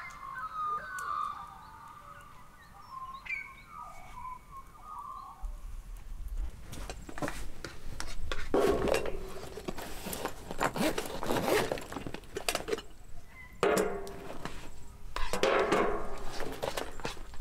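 Camp gear being unpacked: a soft bag and pouch rustling, with light clinks of pots and utensils, in bursts from about a third of the way in.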